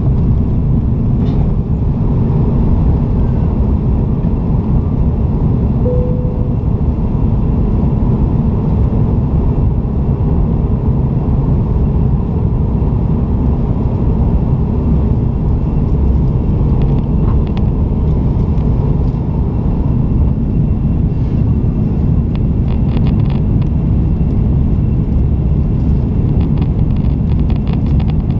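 Cabin noise of an Airbus A330 climbing out after take-off: a steady, loud rumble and rush of its Rolls-Royce Trent 700 turbofans at climb power and of air streaming past the fuselage. A short tone sounds once about six seconds in.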